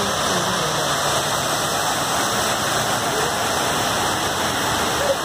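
Steady rushing of water cascading down the walls of the 9/11 Memorial reflecting pools, an even, unbroken roar of falling water.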